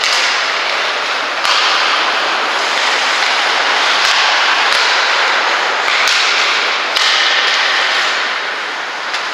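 Ice hockey game on the rink: a steady scraping hiss of skates on ice, broken by scattered sharp clacks of sticks and puck.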